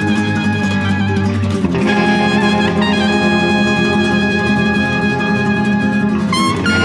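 Instrumental background music with long held chords that change about two seconds in.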